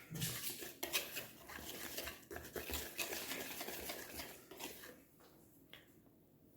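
Pancake batter being stirred in a bowl: a utensil scraping and clicking irregularly against the bowl, stopping about five seconds in.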